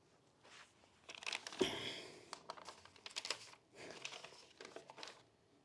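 Crinkling, rustling handling noise close to the microphone, in irregular bursts with a knock about one and a half seconds in.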